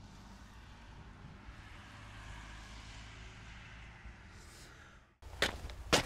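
Faint steady background hiss. Near the end it drops out briefly, and two sharp footsteps follow about half a second apart.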